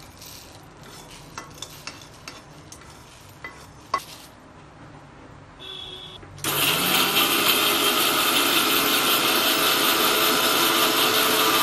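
Roasted coriander seeds and dried chillies tipped into a mixer jar with scattered light clicks, then about six and a half seconds in an electric mixer grinder starts, its pitch rising as it comes up to speed, and runs loudly and steadily as it grinds the dry spices to powder.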